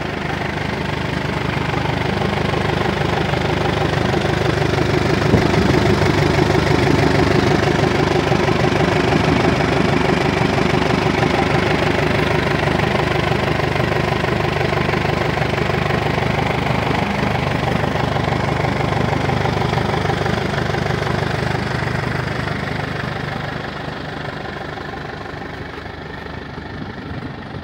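Massey Ferguson 65 tractor engine running steadily at idle. It grows louder over the first few seconds, stays loud through the middle and fades toward the end.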